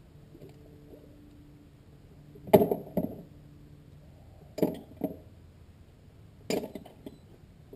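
Litter picked from the mud being dropped into a plastic tub: three sharp knocks about two seconds apart, each followed by a second, lighter one, the first the loudest.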